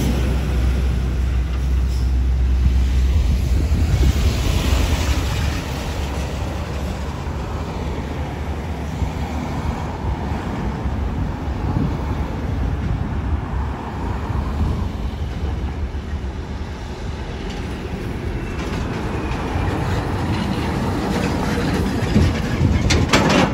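Heavy semi-trucks and road traffic passing: a diesel rumble with rattling trailers. Near the end, an empty flatbed trailer goes by with a quick run of sharp clanks.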